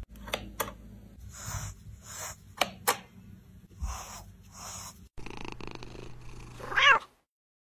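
Cat purring while a brush is drawn through its fur, the brush strokes coming about once or twice a second. Near the end, after a cut, there is a brief rising meow.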